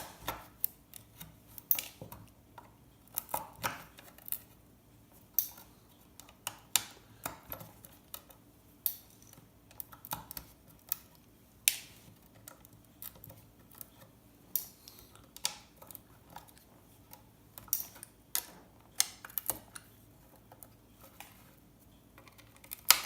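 Irregular sharp clicks and small scrapes from a hand tool working against a circuit board as tiny surface-mount ceramic capacitors (MLCCs) are prised off, about one click a second with occasional quick clusters.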